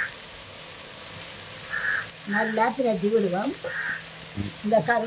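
A spatula stirs and tosses shredded vegetable filling in a frying pan, with short scraping strokes over a steady sizzle. From about two seconds in, a loud pitched call with a wavering pitch sounds over the stirring.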